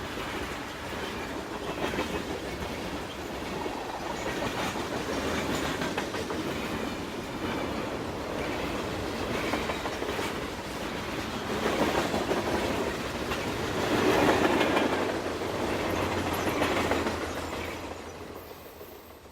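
A moving vehicle rumbling and rattling, swelling louder several times before fading out near the end.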